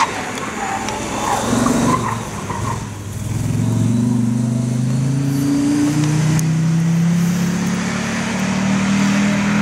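Audi quattro rally car's turbocharged five-cylinder engine accelerating hard. After a few seconds of lower, rougher running, its pitch climbs, drops at an upshift about halfway through, then climbs again.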